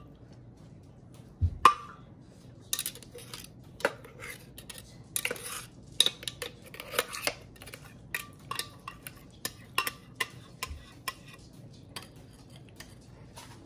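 Steel table knife scraping and clinking against the inside of a glass blender jar as thick blended green seasoning paste is scraped out into a bowl. A run of small scrapes and clicks, with one louder clink about a second and a half in.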